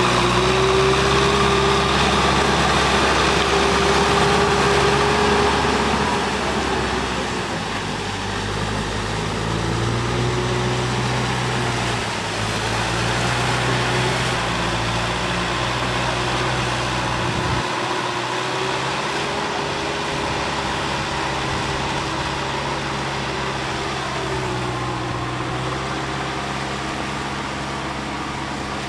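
Kubota tractor's diesel engine running steadily as it drags an implement through a flooded rice paddy. Its pitch wavers a little, and it grows fainter after a few seconds as the tractor pulls away.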